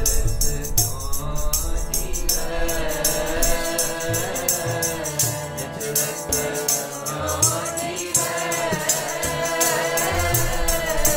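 Sikh keertan: a harmonium holding sustained chords while voices sing a shabad in unison, the singing coming in about two seconds in. A drum beats steadily underneath and a jingling hand percussion keeps an even, rapid rhythm on top.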